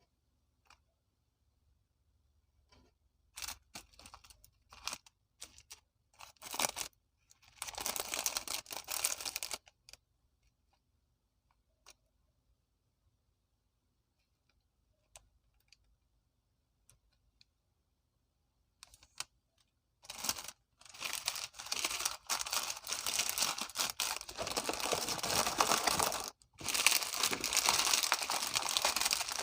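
Snack packet being handled and opened: scattered clicks and taps, then crinkling and tearing. There is a short burst about eight seconds in and a long one from about twenty seconds in.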